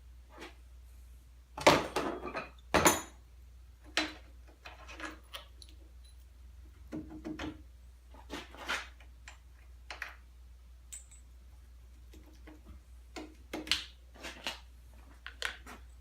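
Hand tools and metal parts clinking and knocking while a 13 mm bolt is taken out and an idler wheel is slipped off a snowmobile's rear suspension, with two loud clanks about two and three seconds in and lighter clicks scattered after.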